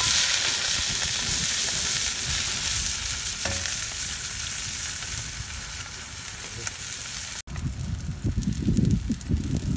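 Chopped spring onions sizzling as they hit hot oil in a steel wok: a loud hiss that starts suddenly as they go in and eases off gradually. Near the end the sound breaks off for an instant and turns into a lower, uneven crackle.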